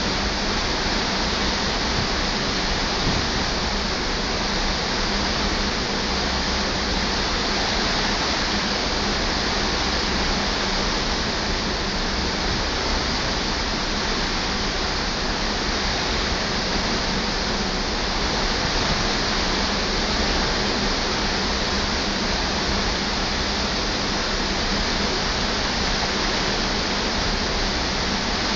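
Steady, even rushing of sea and wind streaming past the side of a cruise ship, heard from a cabin balcony.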